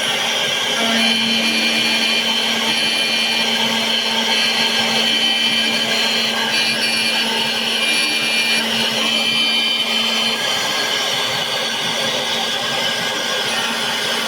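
Xhorse Dolphin XP-005 key cutting machine milling a Porsche 996 key blank: a steady motor whine with the cutter grinding metal. The pitch shifts a couple of times as the cutter moves along the blade, and the low hum eases off about ten seconds in.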